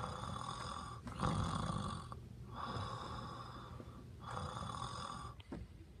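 A person snoring in bed: four long snores in a row, about one every second and a bit, fading out near the end.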